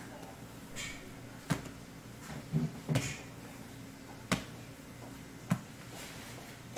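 Large balls of bread dough being patted, folded and set down by hand on a stone worktable: about five short, soft slaps and thuds, spread out, over a faint steady hum.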